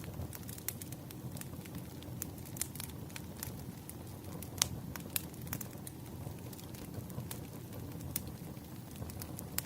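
Burning firewood crackling: irregular sharp pops and snaps over a steady low rumble, with one pop louder than the rest about halfway through.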